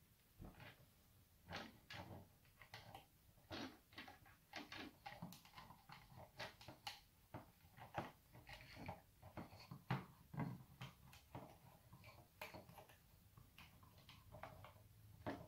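Faint handling noises of a power-supply cable being wound by hand around a small electronics assembly: scattered light clicks and rustles at an irregular pace.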